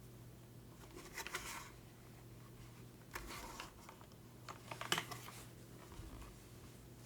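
Typing on a Bauer Lite mechanical keyboard with BSUN Holy Panda tactile switches on a polycarbonate plate and GMK keycaps: three short bursts of quick keystroke clicks, about two seconds apart, the last the loudest.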